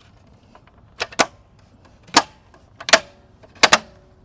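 Plastic wheel skin being knocked into place over an alloy wheel: a series of sharp clacking knocks, some in quick pairs, the last ones followed by a brief ring.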